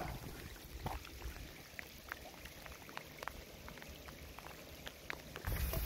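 Light rain falling on calm seawater: a faint patter of scattered, irregular drop ticks on the surface.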